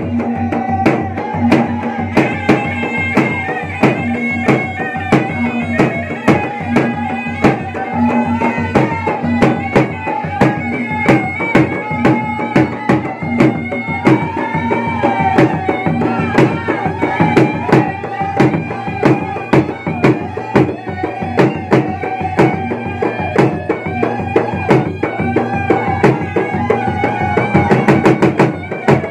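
Two Bugis-Makassar gendang, large double-headed barrel drums, beaten in a fast steady rhythm, with a reedy pipe (pui-pui) playing a continuous wavering melody over them. The drumming thickens into a quick roll near the end.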